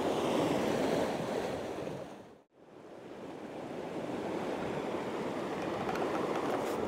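Sea surf breaking and washing over rocks in a steady rush. About two and a half seconds in, the sound drops out briefly and then fades back in.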